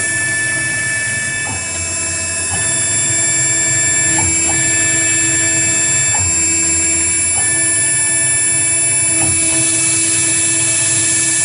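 AKM6090 CNC router running: a steady high spindle whine, with stepper-motor tones that change every second or two as the axes move.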